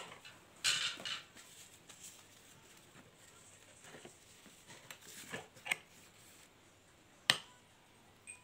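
Metal spoon clinking and scraping against a small ceramic bowl of mask paste: a short scrape about a second in, a few light clicks, and one loud sharp click about seven seconds in.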